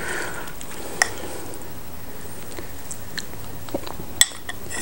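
A metal spoon clicking lightly on a ceramic soup bowl as soup is tasted, with faint eating sounds. There is one click about a second in and a louder one near the end.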